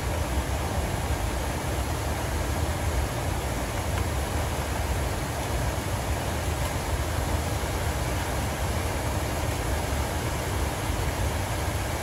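Steady rumble and hiss of air moving through ductwork from a running HVAC system, even and unchanging throughout.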